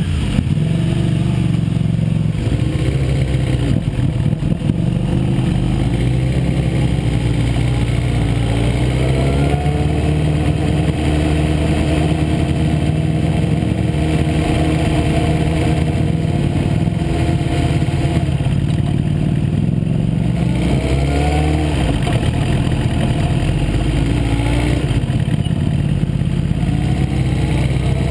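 Onboard sound of a Suzuki GSX-R sportbike's inline-four engine running at low speed, its pitch climbing several times as the throttle is opened and the revs rise through the gears.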